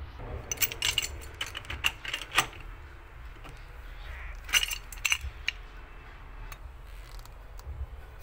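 Sharp metallic clinks and clicks of a steel pipe wrench being handled and set against a galvanized steel tee fitting, in a quick cluster about half a second in and a shorter one a little after four seconds in.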